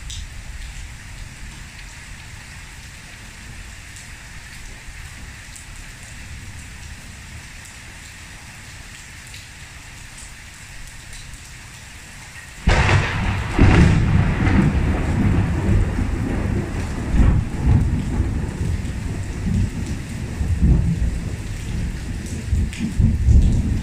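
Heavy thunderstorm rain pouring steadily onto a patio and pool. About halfway through, a sudden loud thunderclap breaks and rolls on as a long, uneven rumble.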